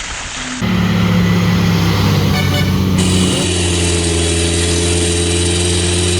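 A motor vehicle engine running steadily, its sound starting abruptly about half a second in and changing suddenly about three seconds in, like separate clips joined together.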